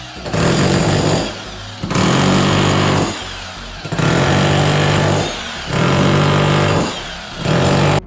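Handheld electric power tool run in repeated bursts of about a second each with short pauses between, opening up around a blocked drain pipe to reach the fitting.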